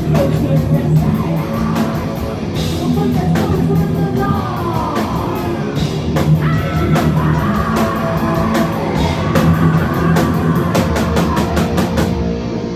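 Live heavy metal band playing loudly: distorted electric guitars, bass and drums, with cymbals struck over and over.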